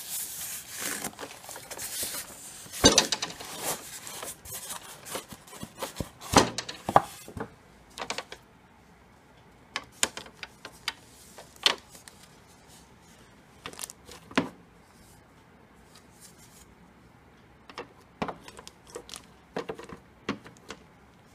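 Clear plastic wrapping over a new keyboard's keys crinkling and rustling as it is handled for the first few seconds, then scattered sharp clicks and knocks of handling the keyboard and its packing.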